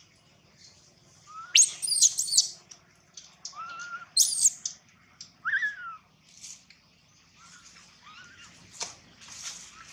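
Baby macaque crying: several short, high-pitched squealing cries, each under a second and rising then falling in pitch, with pauses between them; the loudest come about two and four seconds in. A single sharp click near the end.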